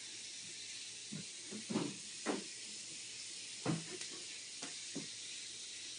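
A steady hiss of grease heating in a pan on the stove, with several short, light knocks and clinks of kitchen utensils and dishes scattered through it.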